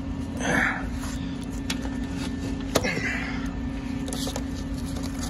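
A steady low machine hum in the garage, with a few brief rustles and scrapes and one sharp click a little under three seconds in, as parts under the car are handled.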